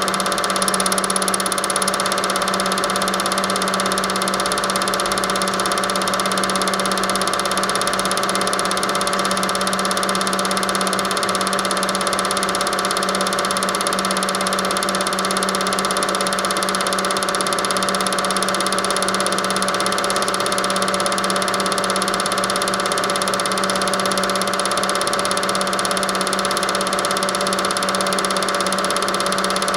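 Film projector running: a steady mechanical hum with several fixed tones, unchanging throughout.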